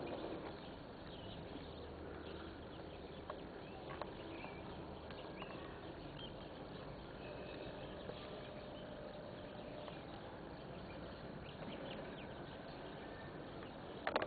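Outdoor background noise with faint, scattered bird chirps, and a brief louder noise near the end.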